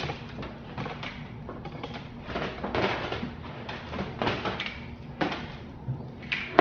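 Irregular plastic clicks, knocks and scrapes of hands fitting a license-plate light reverse camera unit back into place, with a sharp knock at the very end.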